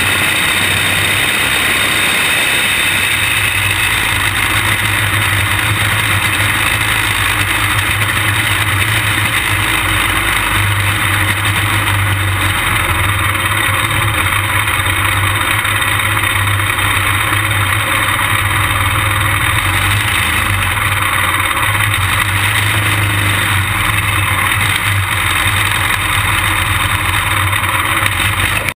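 A junior champ kart's small engine running steadily at low speed, heard close up from a camera mounted on the kart.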